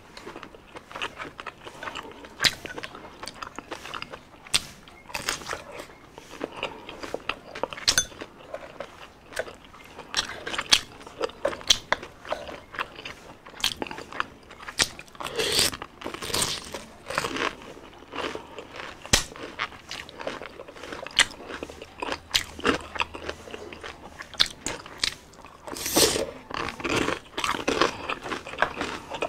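Close-up chewing and crunching of crispy fried street food, full of sharp crackles, busiest about halfway through and again near the end.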